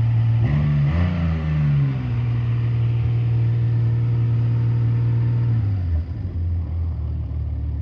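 1979 Honda CBX 1000Z's air-cooled inline-six engine idling, blipped up briefly about half a second in, then dropping to a lower idle near the end. It runs smoothly with no rattles.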